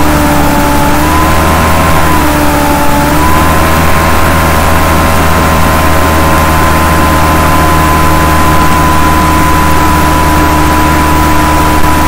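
A steady mechanical drone: a low hum and a wash of noise under a whine whose pitch dips slightly and comes back up twice in the first few seconds, then holds steady.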